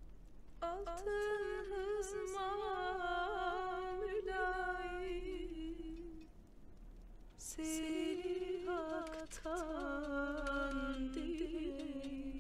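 A single voice humming a slow wordless melody with wavering, ornamented turns, in two long phrases with a short break about six seconds in.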